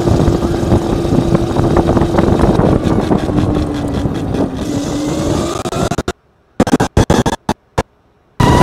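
Electric go-kart driving past on asphalt: a steady electric motor whine over chain and tyre noise, the whine slowly dropping in pitch as the kart moves away. About six seconds in, the sound cuts out, leaving a few short bursts between silent gaps.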